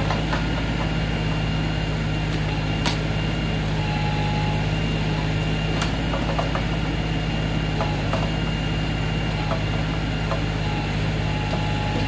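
LS XR3135 compact tractor's diesel engine running steadily while it powers the backhoe digging out a stump, with two sharp clacks about three and six seconds in.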